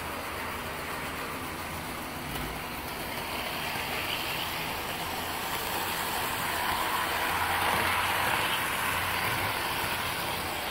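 Model train diesel locomotives running on the track with a steady whirring rumble. The sound grows louder from about three seconds in and eases off near the end, as if the train is passing close by.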